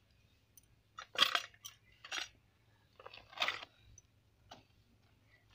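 Green banana leaf being cut and handled: a few short, crisp crunching rustles about a second apart, the first the loudest.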